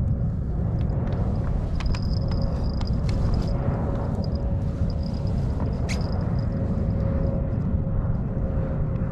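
Steady wind rumble buffeting an open-air microphone on choppy water, with a faint steady hum and a few light clicks.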